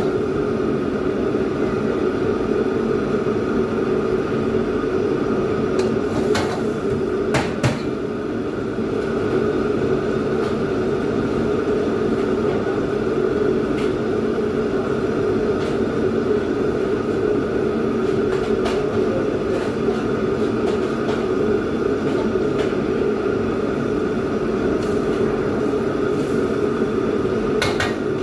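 A commercial wok station running steadily: the gas wok burner and the overhead extractor hood fan. A few sharp metal clanks of a ladle against the wok come through it, two close together about seven seconds in and one near the end.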